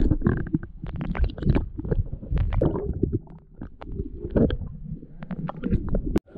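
Muffled underwater sound from a camera held below the sea surface: a low, rumbling sloshing of water around the housing, with many small knocks and clicks, cutting off abruptly near the end.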